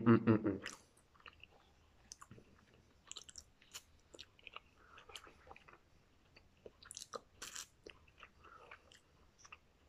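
Close-up mouth sounds of a man eating instant cup noodles with chopsticks: soft chewing with small wet clicks, a brief voice sound at the start, and a short noisy burst, like a slurp, about seven and a half seconds in.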